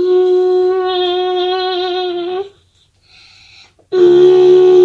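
A child humming two long, held notes on nearly the same pitch, the first slightly wavering, with a short pause between them.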